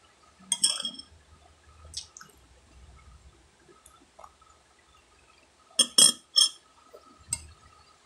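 Metal spoon clinking against a glass in short, sharp taps: a few single clinks, then a quick run of three about six seconds in.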